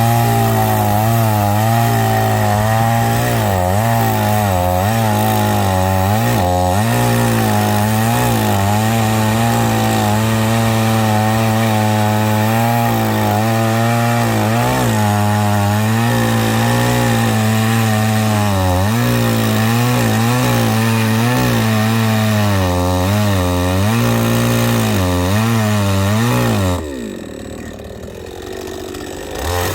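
Chainsaw cutting firewood, its engine pitch dipping again and again as the chain loads up in the wood and recovering between cuts. Near the end the revs fall away for a couple of seconds before the saw picks up again.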